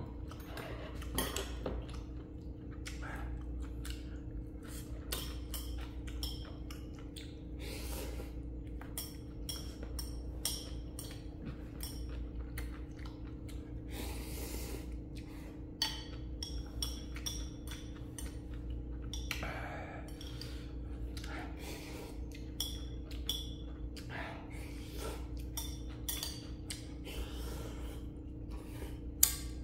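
Someone eating spicy instant ramen: utensils clicking and clinking against the bowl many times, along with breathing, over a steady low hum.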